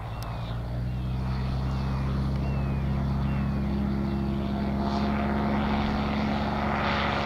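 Propeller engine of an Evolution Revolt weight-shift trike at takeoff power as it rolls and lifts off. The steady engine note grows louder over the first two seconds, then holds.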